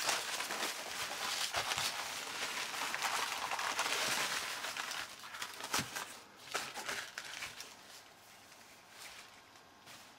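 Packing paper rustling and crinkling as it is unwrapped by hand, dense for the first six seconds, then thinning to a few scattered crinkles and handling clicks before quieting near the end.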